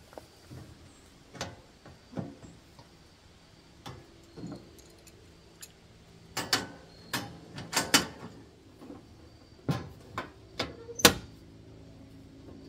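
A two-burner camp stove being folded up: irregular metallic clicks and clanks as the windscreen panels and grate are handled, getting busier about halfway through, with the loudest clank about 11 seconds in as the lid is shut.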